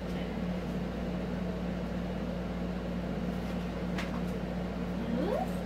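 Steady low hum of room background, with a faint click about four seconds in.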